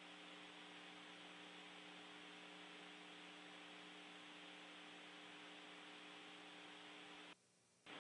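Near silence: a faint steady electrical hum with hiss on the air-to-ground audio link between transmissions, dropping out completely for a moment near the end.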